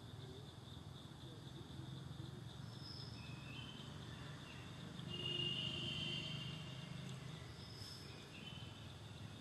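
Forest ambience: a steady high insect drone that swells louder about five seconds in and fades again a second and a half later, with a few short bird chirps over a low steady rumble.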